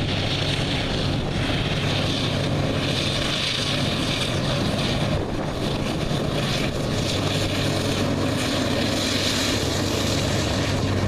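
GE AC4400CW diesel locomotive's engine running with a steady low drone as it passes, over the constant wheel-on-rail noise of loaded coal hoppers rolling by.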